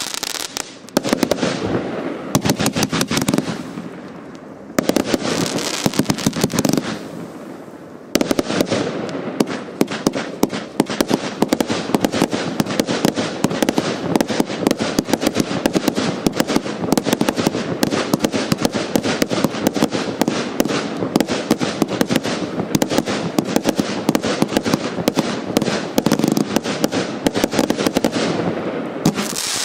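Hallmark Fireworks' Game On firework barrage firing: a few short runs of rapid shots and bursts with brief gaps in the first eight seconds, then continuous rapid-fire reports for the rest.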